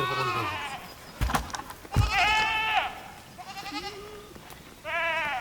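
Sheep bleating, about four wavering calls from different animals, some loud and close and one fainter. Two short knocks come between the first calls.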